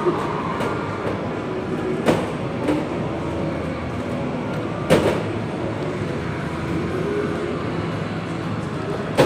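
Steady din of a busy amusement arcade, machines and background noise blended together, with a few sharp knocks about two, five and nine seconds in.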